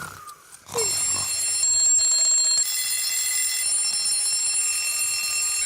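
Alarm clock bells ringing, a continuous jangle that starts about a second in and carries on steadily.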